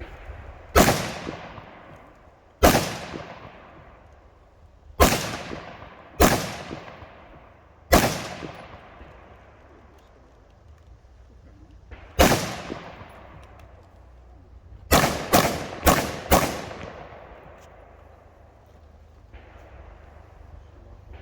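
Rifle shots fired during a practical-shooting stage: six single shots spaced one to four seconds apart, then a quick string of four about half a second apart. Each shot is followed by a long echo.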